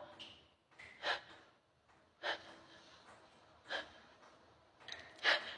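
A person's short, sharp intakes of breath, four of them about a second and a half apart, as a sneeze builds up.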